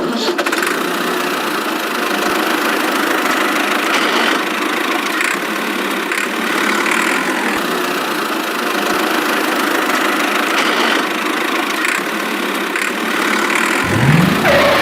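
A small motor running steadily and noisily, with a rising whine near the end.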